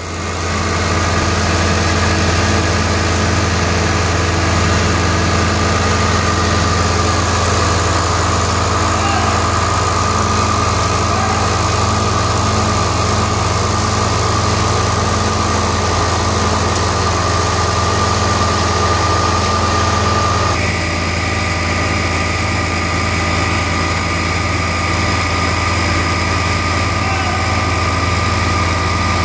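Somero laser screed's engine running steadily, a constant low hum with a high tone held over it. About two-thirds of the way through, the sound shifts abruptly to the Somero topping spreader's engine running just as steadily.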